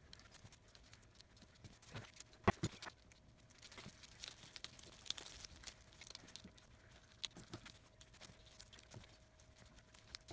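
Gloved fingers pressing and smoothing epoxy putty around a branch set on a wooden board: faint rubbing and scattered light taps, the loudest a single knock about two and a half seconds in.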